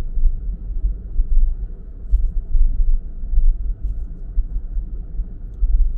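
Low rumble of a car driving along a road, rising and falling unevenly in level.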